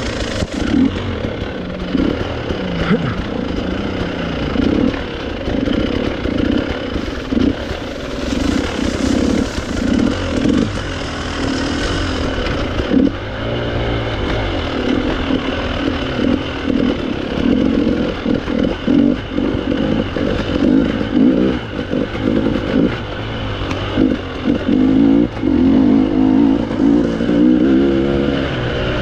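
Hard enduro motorcycle engine running hard under constant throttle changes while riding off-road, its note rising and falling again and again, with some clatter.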